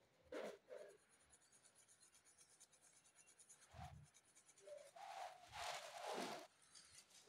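Faint pencil strokes scratching on sketchbook paper while shading: a few short strokes about half a second in, another near four seconds, and a longer run of strokes from about five to six and a half seconds.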